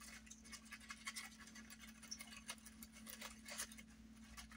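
Faint, scattered scratching and rustling of fine gold glitter and a glaze-coated rose's petals rubbing in a small round glass bowl as the rose is pressed down into the glitter. A low steady hum runs underneath.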